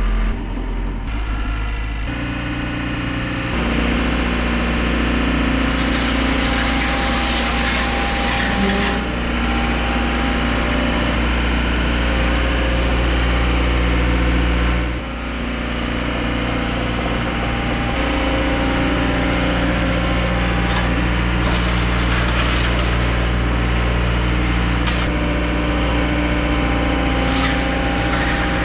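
Diesel engine running steadily, its level stepping up about three and a half seconds in and dropping back around fifteen seconds. A hissing rush rides over it around six to nine seconds in.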